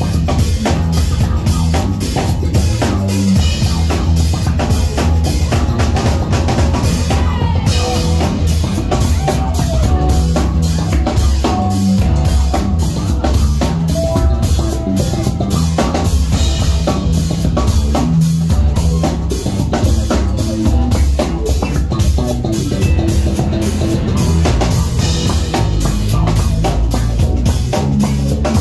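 Live funk band playing: electric bass and drum kit keeping a steady groove.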